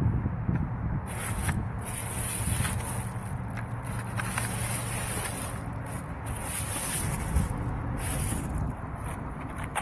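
Wind rumbling on a phone microphone, an uneven low rumble that rises and falls.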